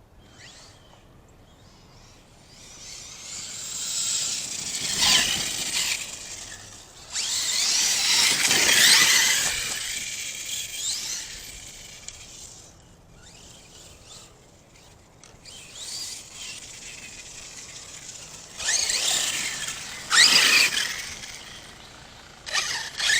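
ARRMA Kraton 6S electric RC truck's brushless motor and drivetrain whining, pitch rising and falling with the throttle as it runs past. It is loudest from about three to eleven seconds in, quieter for a while, then loud again around nineteen to twenty-one seconds.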